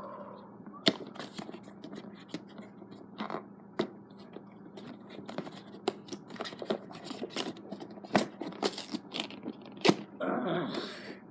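Hands handling and prying at a GoPro camera box: irregular clicks, taps and scraping of the packaging as it is worked open.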